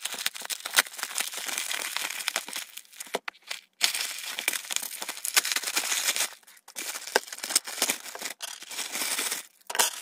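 A plastic mailer package and the wrapping inside it being torn open and crinkled by hand. It is a dense run of crackling and rustling, with a couple of brief pauses.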